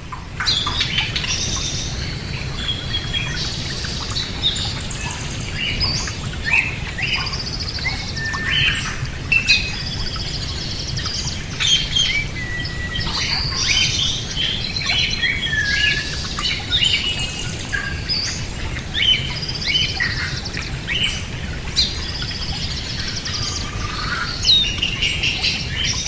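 Pet parrots chirping and whistling: many short, overlapping chirps and rising and falling whistles, over a steady low hum.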